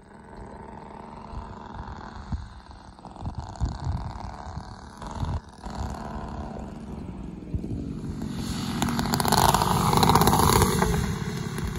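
Propellers and motors of a quarter-scale Beechcraft Starship model on landing approach, growing steadily louder as the aircraft comes in low and passes close about nine seconds in, then easing slightly. Low rumbling thumps of wind on the microphone run through the first half.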